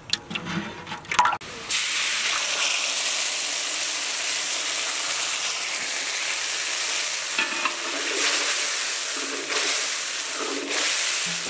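Milky liquid sizzling and spluttering in hot oil in a large iron kadai, stirred with a long metal ladle. The loud sizzle starts suddenly about two seconds in and then holds steady.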